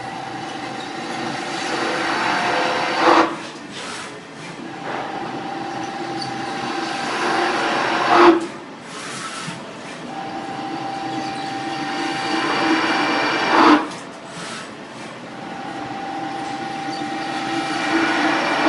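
CNC milling machine cutting metal in repeated passes. Each pass is a steady whine that builds for about five seconds and ends in a brief sharp burst, four times in all.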